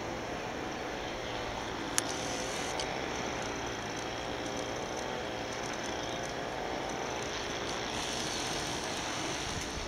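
Steady engine drone, most likely a tour boat's motor running, with one sharp click about two seconds in.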